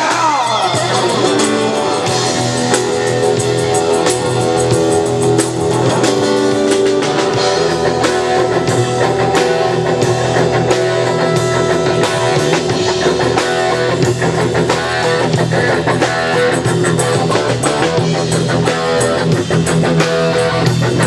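Live rock band playing without vocals: electric guitar leads over a drum kit, opening with a falling slide down the neck.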